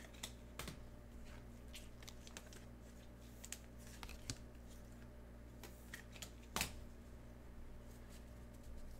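Scattered, irregular light clicks and taps of small objects being handled on a table, the loudest about two-thirds of the way through, over a steady low hum.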